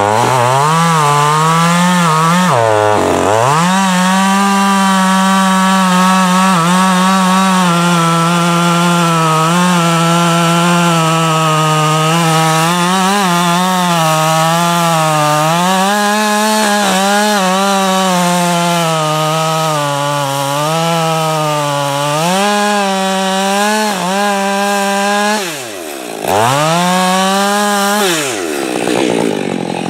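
Husqvarna 562 two-stroke chainsaw at full throttle cutting into the base of a tree, its pitch sagging and recovering as the chain bites. Its revs fall off briefly about 25 seconds in, climb back up, then drop away again near the end.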